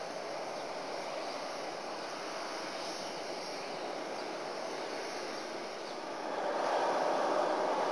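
Jet engines of an Airbus A320-214, its CFM56-5B turbofans, running at taxi power: a steady jet noise that grows louder about six seconds in.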